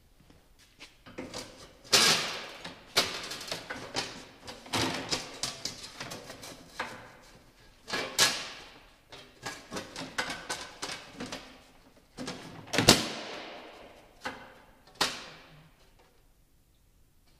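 A cut sheet of aluminium road-sign metal being laid onto a metal cart's base and knocked into place: a run of irregular clanks and rattles, the loudest few ringing briefly, dying away near the end.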